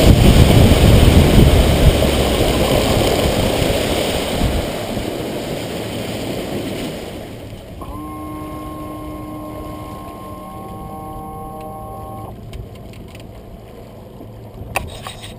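Rush of wind and water over a Skeeter WX2000T bass boat's bow, fading steadily over the first several seconds as the boat comes off plane and slows. Then it is much quieter, with a steady set of tones for about four seconds and a few sharp clicks near the end.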